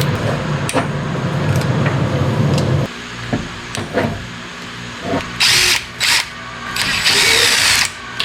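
Background music that cuts off about a third of the way in, followed by a few light knocks and three short bursts from a power tool, the last about a second long.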